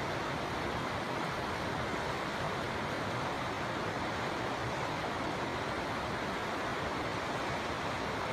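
River water flowing, a steady, even rush of moving water with no breaks or changes.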